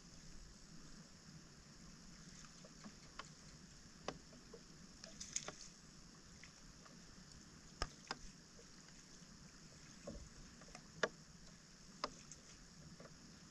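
Faint, scattered splashes and clicks of hands pulling debris from a flooded roadside drain and working in the standing water, over a steady low hiss.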